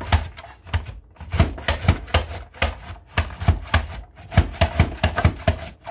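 Carrots being cut in a Rapid Prep Mandolin: repeated crunching, clacking strokes as the handle drives the carrot through the blades, about three or four a second, with a short pause about a second in.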